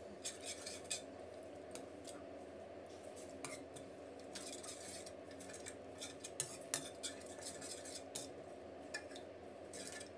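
Metal spoon scraping and clinking faintly against a stainless steel pot while stirring red curry paste into coconut cream, in irregular light clicks, over a steady low hum.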